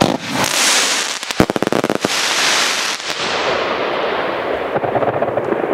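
Ground firework fountain hissing as it sprays sparks, with a quick run of crackling pops about a second in; after that the hiss turns duller.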